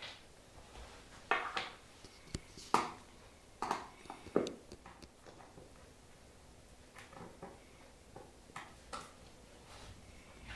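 Hand screwdriver turning screws into an IKEA Kallax laminated particleboard panel: irregular clicks and knocks of the tool, screws and board, a few louder knocks in the first half and fainter clicks later.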